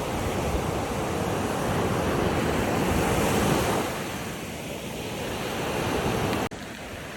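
Water waves washing in as a steady rush that swells to a peak about three and a half seconds in and then eases, with wind on the microphone. The sound drops out for an instant near the end.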